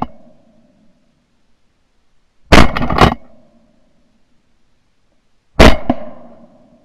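Shotgun fired twice, about three seconds apart, each blast very loud and trailing off in an echo; the tail of an earlier shot fades at the very start.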